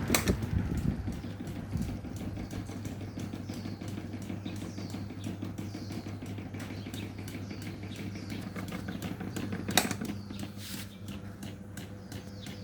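Small homemade electric fan running, with a steady motor hum and a fast, even flutter from its spinning blades. There is a sharp click right at the start and another about ten seconds in.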